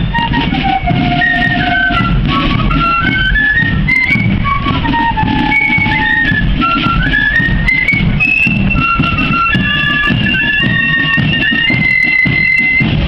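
Marching flute band playing a tune: the flutes carry the melody over a steady beat of drums.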